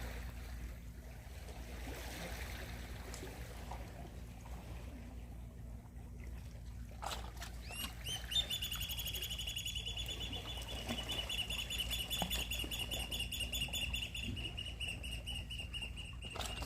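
A knock about seven seconds in, then a long, high, rapidly pulsing animal trill lasting about eight seconds, falling slightly in pitch and stopping suddenly, over steady low background noise.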